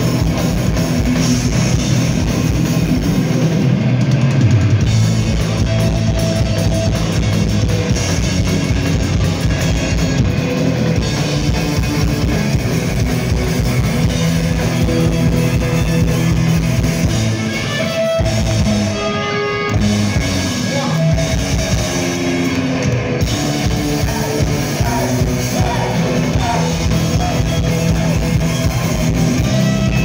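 Heavy metal band playing live, with distorted electric guitars and a pounding drum kit, recorded from within the audience. About eighteen seconds in, the drums drop back for a moment under a stepped melodic line, then the full band comes back in.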